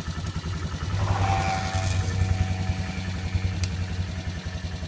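Polaris Trail Boss 325 ATV's single-cylinder engine running with a steady low pulse. The engine sound swells from about a second in and eases back after a couple of seconds, and there is a single small click near the end.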